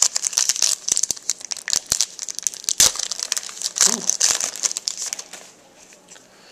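Plastic wrapper of a hockey trading-card pack crinkling and tearing as it is opened by hand, a dense run of crackles that stops about five seconds in.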